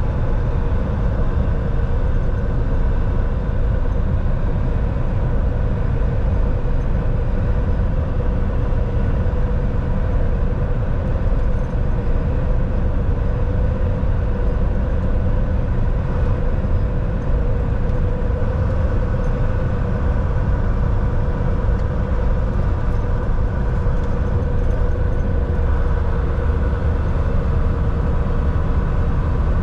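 Volvo VNL 760 semi truck driving steadily, heard from inside the cab: a constant low engine drone and road rumble with a steady hum.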